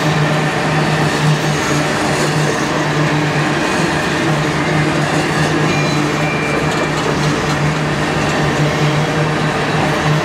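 Empty steel coal hopper cars of a freight train rolling past on the track: a steady noise of wheels on rails, with a low hum underneath throughout.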